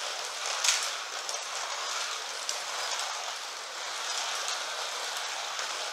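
1/32-scale Carrera Digital slot cars running on the plastic track: a steady hiss of the small motors and pickups on the rails, with scattered light clicks.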